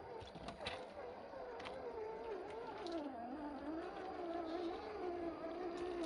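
Electric motor and gears of a 1/12-scale RC off-road truck whining as it crawls through mud and water. The pitch wavers with the throttle and drops about three seconds in. A few sharp clicks and splashes sound over it.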